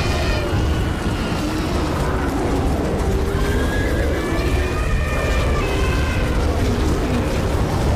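Overlapping animal cries that rise and fall in pitch, over a loud, steady low rumble.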